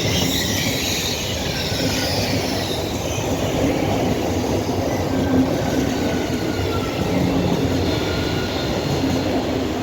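A train running past with a steady rumble, and thin high squeals from its wheels on the rails.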